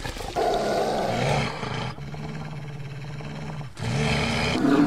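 Brown bear growling in three stretches: a growl, then a steadier, quieter low growl from about two seconds in, then a louder growl near the end.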